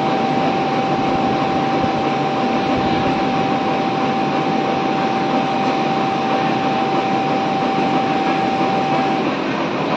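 Richpeace automatic template sewing machine running, its head stitching along a collar template with a loud, steady mechanical whirr. A steady whine runs over it and stops about nine seconds in.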